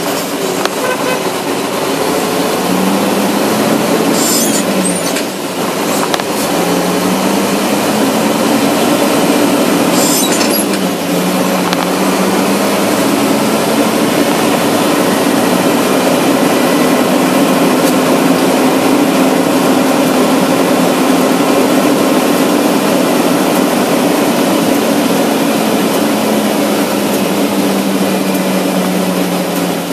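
Car driving at low speed, engine hum and road noise, the hum rising and falling in pitch several times as the car speeds up and eases off. A couple of brief knocks come in the first ten seconds.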